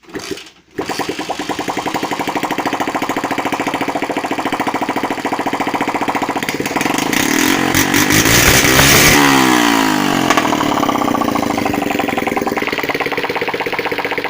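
Small single-cylinder four-stroke moped engine, just repaired, catching about a second in and running. It is revved up and back down between about 7 and 10 seconds in, then runs steadily again.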